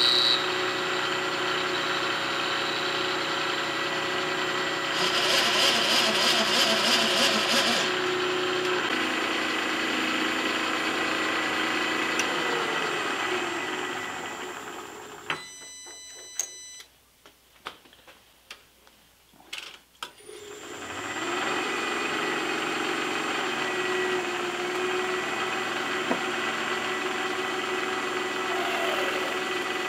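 Vertical milling machine running, with an end mill cutting metal that gets louder and rattles about 5 to 8 seconds in. About halfway through the spindle winds down and stops, leaving a few seconds of quiet with clicks and knocks of a hand tool change, then the spindle spins back up and runs steadily with a drill chuck fitted.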